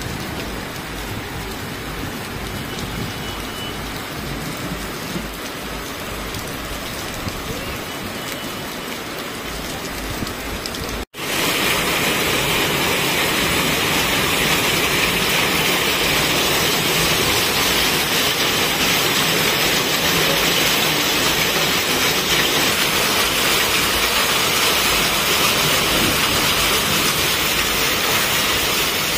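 Heavy rain mixed with hail pouring down in a steady hiss. A brief drop-out comes about eleven seconds in, and after it the downpour is louder and brighter.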